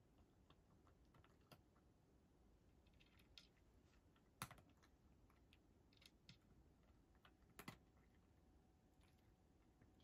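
A cat eating from a dish: faint, scattered clicks of chewing and of the dish being touched, over near silence. The loudest click comes about four and a half seconds in, and a close pair near the eight-second mark.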